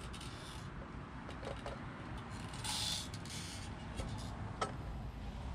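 Street ambience with a steady low rumble of traffic, a short hiss about halfway through and a couple of light clicks near the end.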